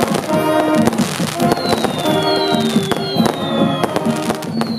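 Marching brass band playing sustained chords, close to a large brass horn, with fireworks popping and crackling throughout. A short falling whistle repeats roughly once a second.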